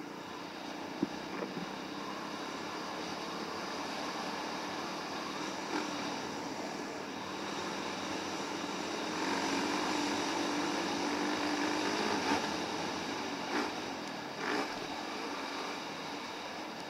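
Yamaha WR450F's single-cylinder four-stroke engine running on the move, its pitch rising for a few seconds past the middle, with a few short knocks.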